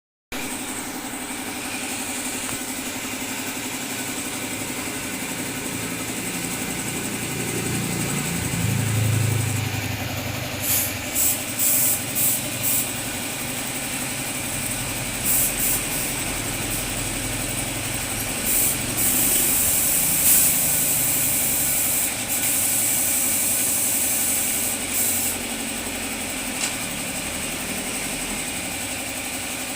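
A motor running steadily, with a series of short hissing bursts starting about a third of the way in and a longer hiss in the middle.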